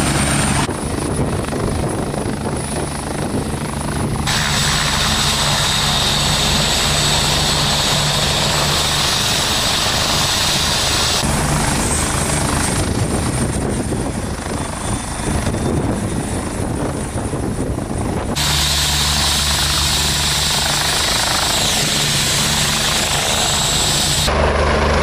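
UH-72 Lakota helicopter running: its twin turboshaft engines and rotor give a steady high turbine whine over the low rotor beat. The sound changes abruptly a few times.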